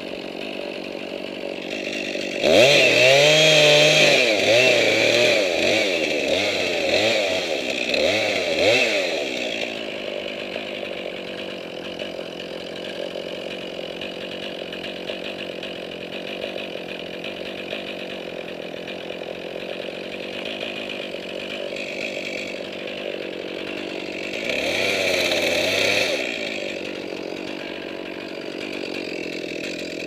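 Chainsaw running steadily, revved hard with its pitch wavering for several seconds from about two seconds in, and again briefly about 25 seconds in.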